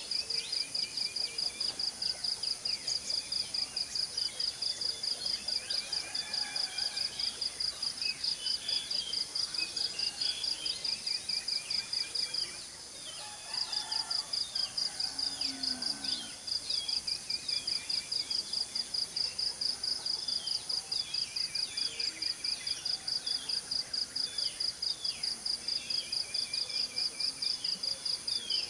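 An insect calling in a steady high-pitched pulse, about four pulses a second, breaking off for about a second midway, with several birds chirping and whistling short falling notes over it.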